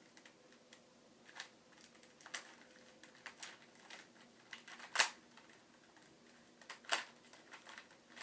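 Plastic Rubik's Cube being turned by hand: irregular clicks and clacks of the layers, the loudest about five and seven seconds in.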